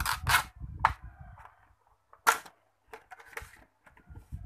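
Stiff clear plastic blister packaging being pried open and handled: a run of crackles and snaps, the sharpest single snap a little past two seconds in, then scattered lighter clicks.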